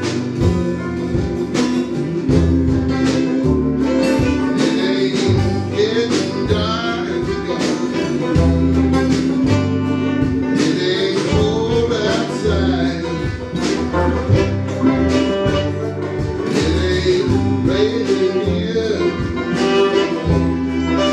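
Live country band playing a tune with a steady beat: guitar, bass, keyboard and drums, with a voice singing the melody.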